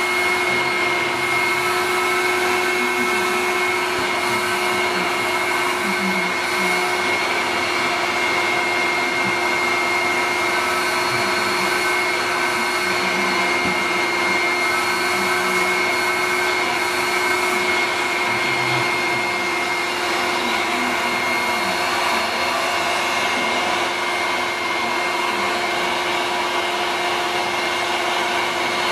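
Vacuum cleaner (hoover) running steadily: an even motor hum with a constant high whine over it.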